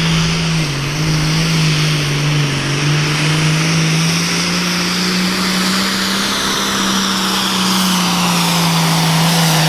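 Diesel engine of a Pro Farm class pulling tractor running at full throttle under heavy load as it drags the pulling sled down the track, its note loud and holding nearly steady.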